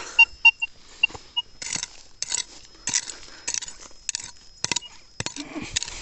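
Minelab Vanquish 540 metal detector giving a few short, high beeps on a target, then a small metal hoe digging into stony soil, striking and scraping in repeated strokes about twice a second.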